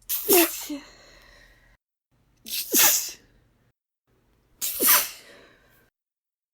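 A woman sneezes three times in a hissing 'ttzzsshhuh' style. Each sneeze is a sudden loud burst that falls in pitch, with silent pauses between them.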